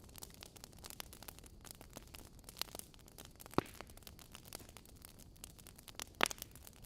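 Wood fire crackling in a fireplace: a dense run of small crackles over a soft hiss of flame, with two louder pops, about three and a half seconds and about six seconds in.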